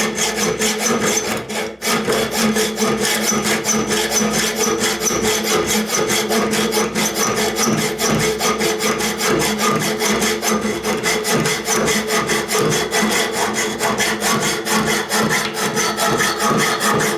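Hand hacksaw cutting through a padlock's hardened steel shackle held in a vise: rapid, even back-and-forth strokes of metal rasping on metal, with a steady metallic ring under them and a brief pause about two seconds in.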